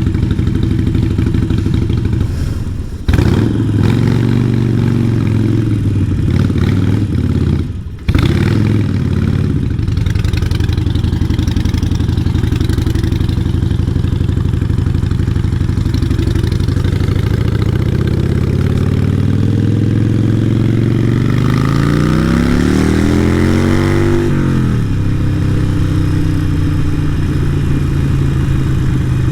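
Harley-Davidson Iron 883's air-cooled V-twin running through a Vance & Hines exhaust while riding. The sound dips briefly twice in the first eight seconds, then the engine pitch climbs steadily for several seconds and drops sharply near the end as the revs fall.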